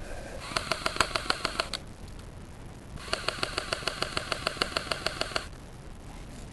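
Electric airsoft gun firing two rapid bursts, about six to seven shots a second, with a steady whine under the shots. The first burst lasts about a second, and the second, starting about three seconds in, lasts about two and a half seconds.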